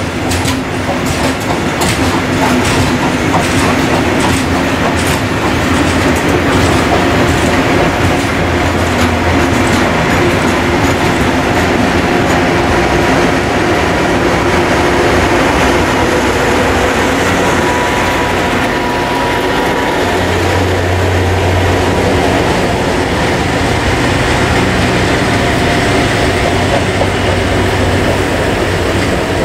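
A long freight train of coal wagons running past, its wheels clattering rhythmically over the rail joints. About midway the class 132 'Ludmilla' diesel locomotive at the tail passes with its engine running, and the steady engine sound carries on as the train draws away.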